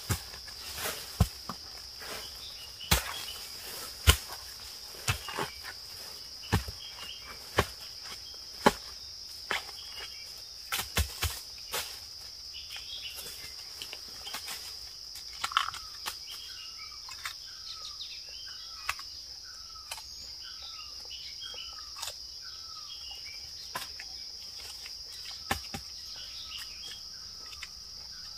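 Sharp knocks of a blade chopping into the forest floor and roots, about one a second for the first dozen seconds and only now and then after that, over a steady high insect drone. A run of short repeated chirps comes midway.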